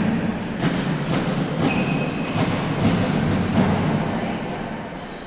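Badminton rally: rackets striking the shuttlecock, a run of sharp hits in quick succession that stops about four seconds in.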